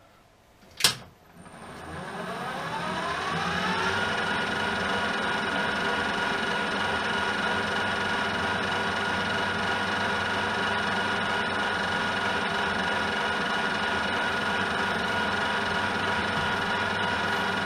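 Metal lathe with a four-jaw chuck starting up: a single clunk about a second in, then the motor and gearing rise in pitch over a few seconds. It then runs steadily with a whine from the gears.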